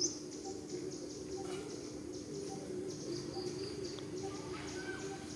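Outdoor ambience of insects chirping in rhythmic high-pitched pulses, with a short bird chirp right at the start over a steady low hum.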